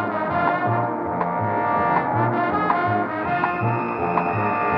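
Dramatic brass-led action music over a steady pulsing bass, about two beats a second. A long high held note comes in about three seconds in.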